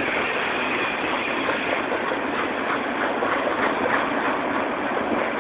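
Loaded coal train's hopper cars rolling past: steady noise of steel wheels on rail, with light clicks coming through in the second half.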